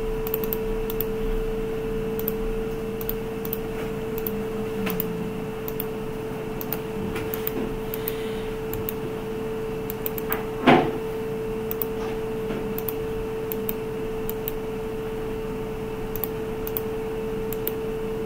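Steady background hum holding one constant mid-pitched tone, with light computer mouse clicks scattered through. One louder short knock comes a little past halfway.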